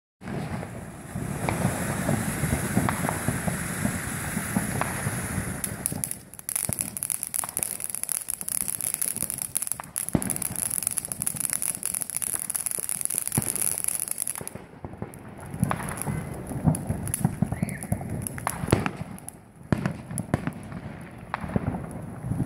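Consumer fountain fireworks spraying sparks: a continuous crackling hiss dense with small pops, dipping briefly a few times.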